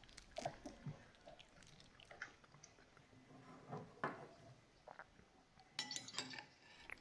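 Faint ASMR-style tableware sounds: a few soft, wet clicks, then a knife and fork clinking and scraping on a china plate about six seconds in.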